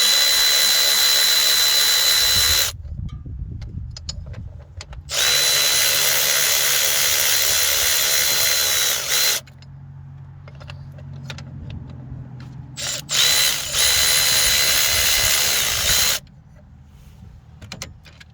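Milwaukee cordless electric ratchet spinning out the power steering pump bolts: three runs of a few seconds each, each with a steady high whine, with small metal clinks between runs.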